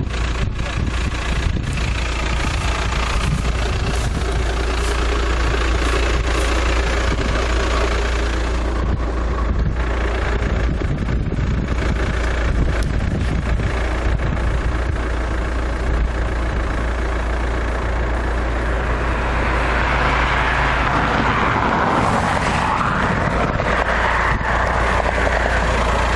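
Steady road and engine noise of a van driving at highway speed, heard from inside the cab: a constant low rumble under an even hiss, which grows louder for the last few seconds.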